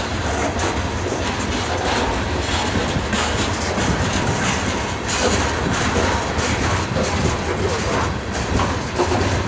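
Freight cars of a mixed CSX freight train, covered hoppers then tank cars, rolling steadily past close by: a continuous rumble of steel wheels on rail with many repeated clicks.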